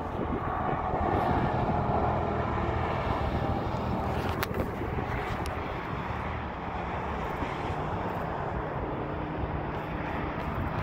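Steady motor-vehicle engine and traffic noise, a little louder in the first few seconds and then running on evenly.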